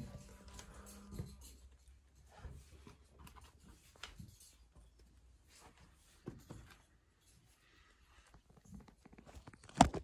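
Quiet, scattered rustles and soft bumps of someone on the move, with a short low drone at the start and one sharp knock near the end.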